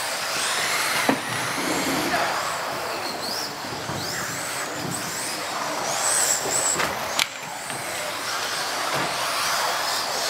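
Several electric off-road RC cars racing on a carpet track, their motors whining high and rising and falling as they accelerate and brake, over steady tyre and running noise. Two sharp knocks about a second in and about seven seconds in, like a car hitting the track border.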